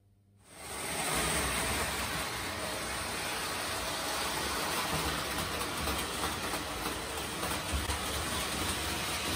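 Prewar Lionel tinplate toy train running on three-rail metal track, a steady rumble that starts suddenly about half a second in.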